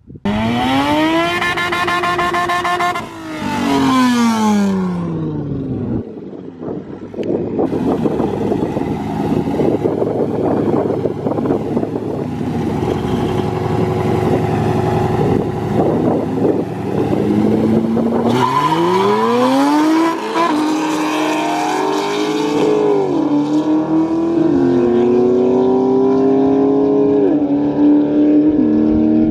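Two street cars, a modified Honda Civic and a Pontiac G8, sit at the line with engines running roughly for several seconds. They then launch together, and the two engine notes climb side by side, each dropping about three times as the cars shift up through the gears. Before that, a car engine revs up, holds high, then falls away over about five seconds.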